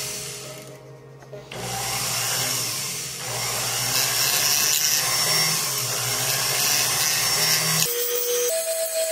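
Rotary handpiece with a fine bur grinding girdle seats into a sterling silver channel setting. There is a short stretch of cutting, a pause about a second in, then steady grinding from about a second and a half in that stops near the end.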